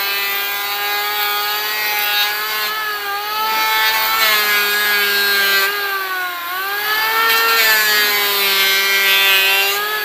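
Handheld electric planer running over a curved wooden frame: a steady high motor whine over the hiss of the blades shaving wood. The whine dips in pitch briefly about six seconds in, then comes back up.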